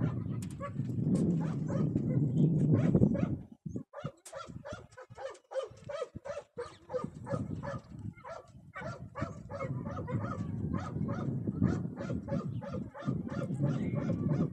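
Dog barking and yipping rapidly over and over, several barks a second, with wind rumbling on the microphone in the first few seconds and again in the last few.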